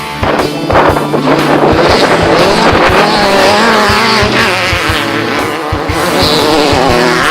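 Race vehicle engine revving, its pitch wavering up and down, over rock music with a steady drumbeat.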